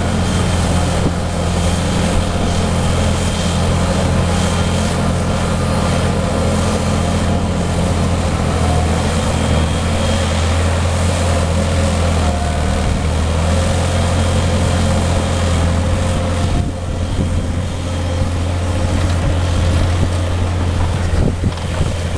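Fendt 936 Vario tractor's six-cylinder diesel engine running steadily under heavy load while pulling a plough through wet, muddy ground.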